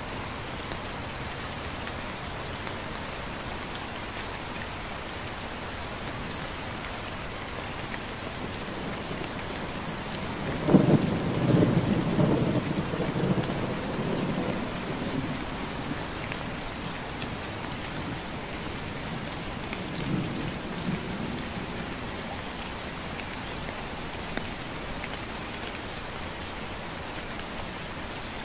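Steady light rain hissing. About eleven seconds in, a sudden low rumble of thunder rolls and fades over about four seconds, and a second, weaker rumble follows near twenty seconds.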